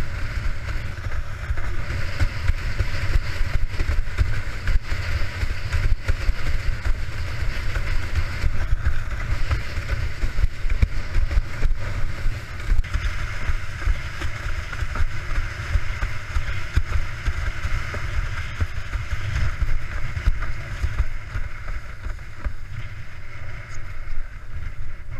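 Strong wind buffeting the microphone as a rumble, over the steady hiss and rush of water under a Starboard Isonic 80 slalom windsurf board planing at speed in a high wind.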